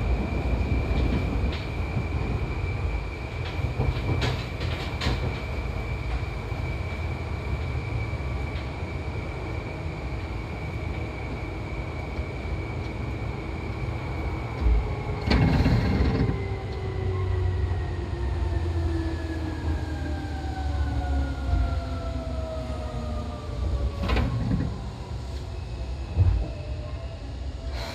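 Old Seibu 2000 series electric train running, heard from inside the car: a steady rumble under a motor whine that holds one pitch, then falls steadily from about halfway as the train slows. A couple of short knocks come from the running gear.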